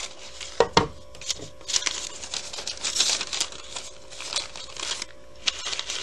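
Brown paper bag, cut into fringe strips, being opened up and handled: the paper crinkles and rustles unevenly, with two sharp taps a little under a second in.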